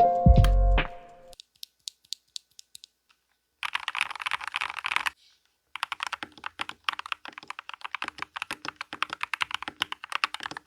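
Custom mechanical keyboard with thocky switches in an aluminum case being typed on. A few scattered keystrokes are followed by a fast burst of typing, a brief pause, then steady quick typing. Music ends about a second in.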